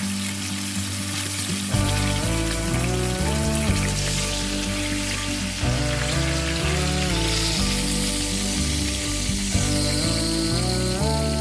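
Food frying in hot oil in a pan: a steady sizzle, with background music whose bass and melody come in about two seconds in.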